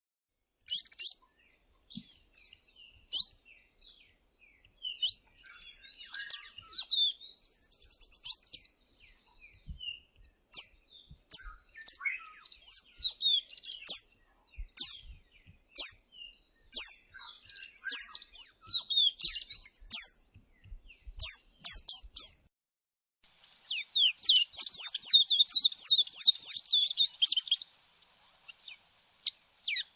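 Songbirds chirping: a series of short, high-pitched notes, many of them sweeping downward, with a dense, fast run of chattering notes for several seconds near the end.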